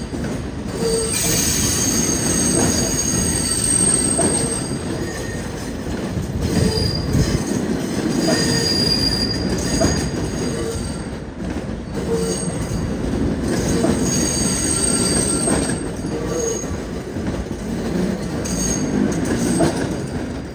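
A subway train rolling slowly through a rail yard's curves and switches, its wheels squealing in repeated high-pitched bursts over a steady low rumble.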